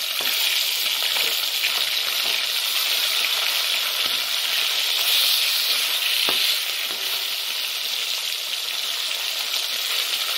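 Katla fish pieces sizzling steadily as they fry in hot mustard oil in a metal kadai, with a few light knocks and scrapes of a metal spatula against the pan as the pieces are turned.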